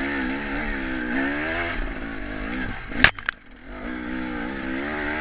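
KTM dirt bike engine running under constantly changing throttle, its pitch wavering up and down. A single sharp knock about three seconds in, after which the engine sound briefly drops away and then picks up again.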